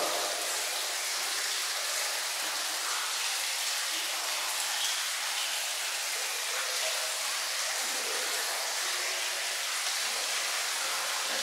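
Hammam foam massage: a steady, rain-like hiss of wet soap lather as hands rub foam over a body on the marble slab.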